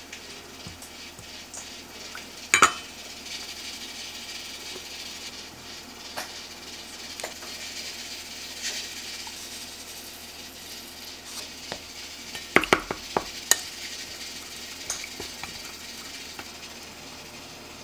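A spoon stirring sauce in a small stainless steel bowl, with liquid poured in from bottles. The spoon knocks sharply against the bowl twice about two and a half seconds in, and clinks several times in quick succession around twelve to thirteen seconds.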